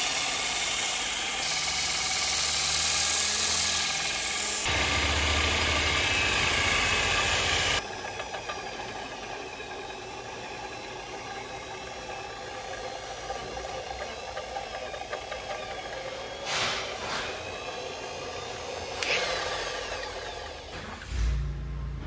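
Electric drill spinning a wooden bat blank as a makeshift lathe, its motor giving a steady hum. For the first several seconds a strip of 40-grit sanding belt is held against the turning wood, adding a loud hiss. After an abrupt cut the motor runs on more quietly.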